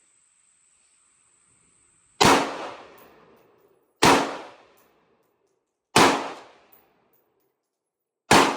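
Four slow, aimed shots from an Aero Precision AR-15 pistol in 5.56, about two seconds apart. Each sharp report is followed by a short decaying echo.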